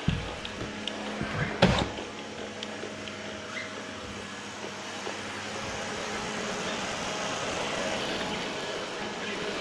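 Vacuum cleaner running steadily, with a sharp knock at the start and a louder knock a little under two seconds in.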